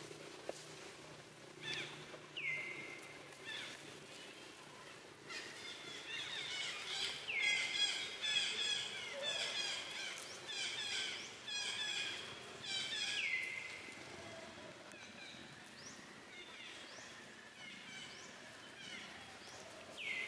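Birds calling in woodland: a high call that sweeps down and then holds, repeated about four times several seconds apart, with a busy stretch of rapid chirping in the middle.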